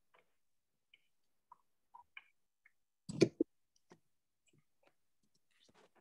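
A few faint clicks and ticks, with one louder knock, two hits in quick succession, about three seconds in.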